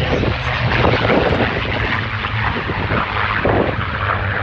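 Grob Tutor trainer's four-cylinder piston engine and propeller running steadily during its aerobatic display, a low steady drone under broad noise.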